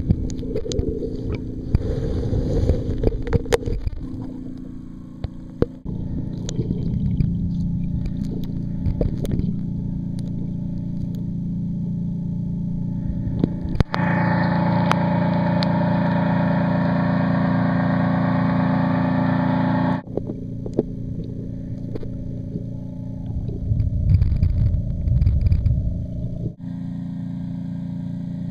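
Muffled underwater sound picked up by a submerged waterproof camera: a steady low hum with scattered knocks and the movement of water. About halfway through, as the camera breaks the surface, a steady rushing hiss of water sets in for several seconds and then cuts off suddenly.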